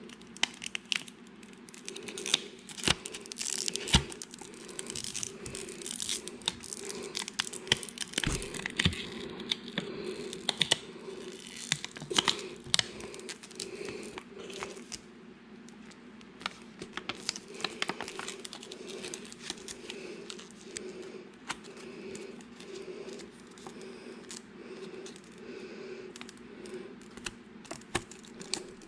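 A Goldback's thin gold-foil sheet being folded and creased by hand, crinkling and crackling with sharp crisp snaps, busiest in the first half and sparser later. A low pulsing hum runs underneath.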